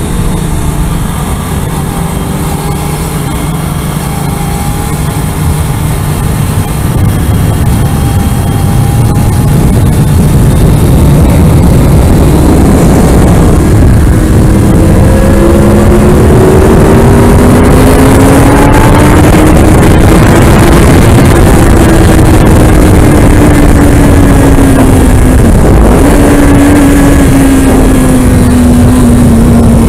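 Kawasaki Ninja ZX-6R inline-four engine at speed on track, under heavy wind rush on the helmet microphone. The engine note stays low for the first third, then grows louder and rises in pitch under acceleration, sags slowly, and breaks briefly about 26 s in before carrying on.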